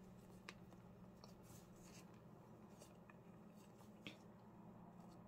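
Near silence: faint rustling and a few light ticks of paper postage stamps being shuffled by hand, over a low steady hum.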